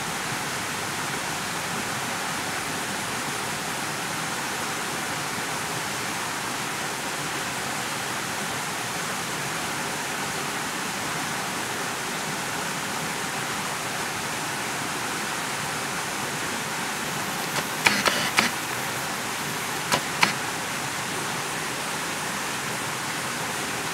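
Steady, even rushing noise throughout, with a quick cluster of sharp clicks about 18 seconds in and two more about two seconds later.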